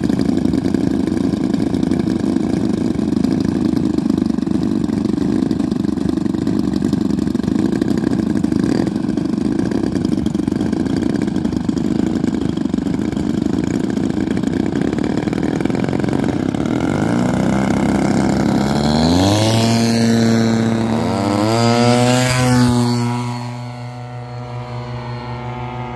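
Engine of a radio-controlled P-51 Mustang model airplane running steadily at idle. About two-thirds of the way through it is throttled up for takeoff and its pitch climbs in steps. Near the end the pitch falls and it grows quieter as the plane flies off.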